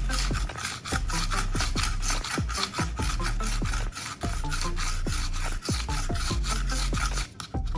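Knife blade being rasped against a sharpening surface in fast, even strokes, about five a second. The strokes stop just before the end. Background music with a steady beat plays throughout.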